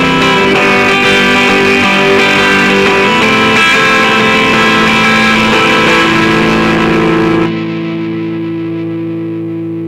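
Electric guitar recording played back through Cubase's VST Amp Rack amp simulator, a dense, loud, amped guitar sound. About three-quarters of the way in the playing stops and a last chord rings on more quietly.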